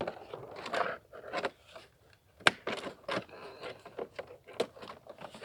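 Handling noise: rustling and scraping with several sharp clicks, the loudest about two and a half seconds in.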